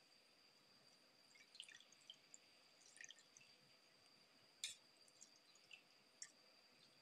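Faint drips and wet squelches as hands squeeze water out of washed leafy greens over a steel bowl, in scattered small ticks with one sharper tap about two thirds of the way through. A faint steady high whine lies beneath.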